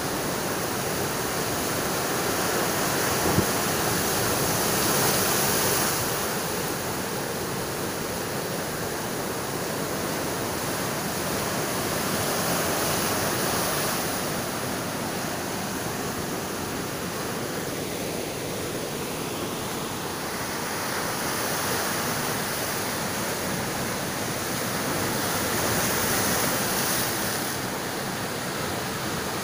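Rough sea surf breaking and washing over shoreline rocks, a continuous rush that swells louder every several seconds as waves come in. A single short knock sounds about three seconds in.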